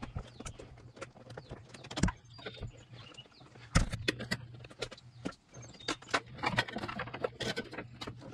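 Sharp plastic clicks and knocks as wiring harness connectors are unplugged and handled in a BMW E46's engine-bay electronics box, with a low steady hum underneath. The loudest knocks come about two seconds and about four seconds in.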